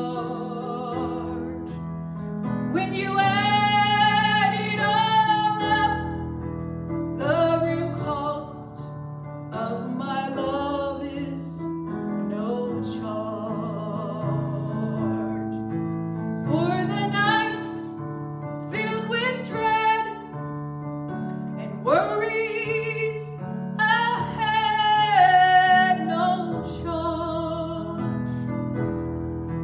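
A solo voice singing a slow song with long held notes and vibrato, over piano accompaniment.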